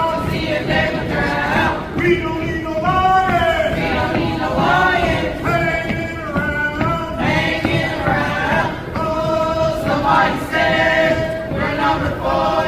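A group of voices singing a held, gliding melody.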